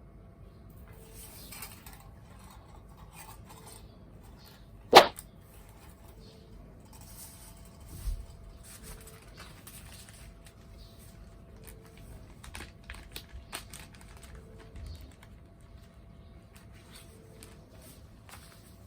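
Scattered light clicks and taps, with one sharp, loud knock about five seconds in and a smaller one about three seconds later.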